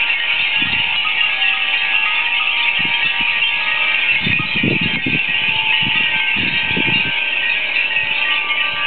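Many glass furin wind chimes ringing together in a strong wind, a dense, continuous, overlapping tinkling of many high tones. Low rumbles of wind on the microphone come and go, strongest in the middle.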